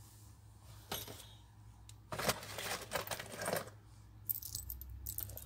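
Small metal jewelry pins clinking and rattling together as they are picked out of a box by hand: a single click about a second in, a longer rattle from about two seconds in, and a run of light clicks near the end.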